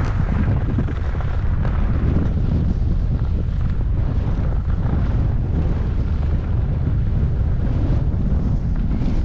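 Wind from a skier's downhill speed buffeting the microphone: a loud, steady low rumble.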